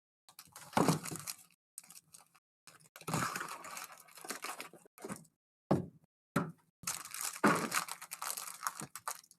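Plastic wrapping on a box of trading-card packs being torn and crinkled in a series of irregular rustling bursts, as the sealed box and its packs are opened.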